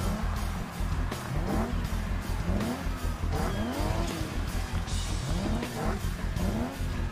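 Car engines revving again and again, each rev rising and falling in pitch, over loud music with a heavy, steady bass beat.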